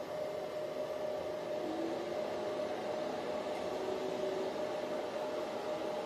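Antminer L3+ ASIC miner running just after power-on on replacement low-speed cooling fans: a steady fan whoosh with a steady hum-like tone through it.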